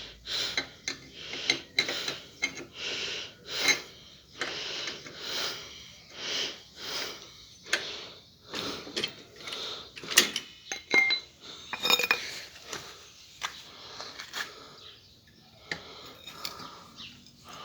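Hand tools and metal car parts clinking, knocking and scraping in irregular strokes while a stubborn part is worked loose by hand.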